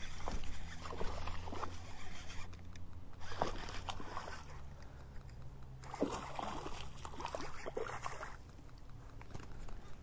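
A hooked bass thrashing and splashing at the water's surface as it is played in, in several short bursts with the biggest flurry a little past the middle.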